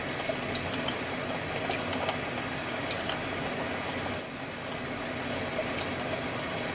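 Steady low hiss of a kitchen stove setting, with a few faint clicks and taps as soy sauce is spooned and poured from a bottle into a steel pot of pork broth.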